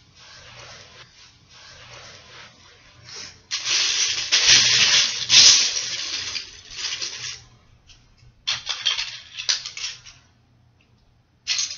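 Hands rummaging through a large heap of loose Lego bricks, the plastic pieces clattering, loudest for about four seconds in the middle, then a few shorter bursts.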